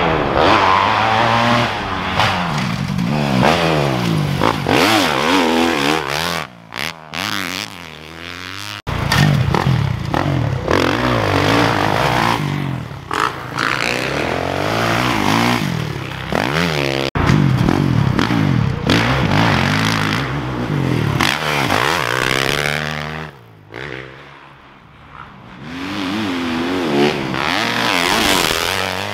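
Motocross dirt bike engines revving up and backing off over and over, rising and falling in pitch as the bikes ride a dirt track. The sound cuts off abruptly a few times and drops to a quieter drone for a couple of seconds near the end.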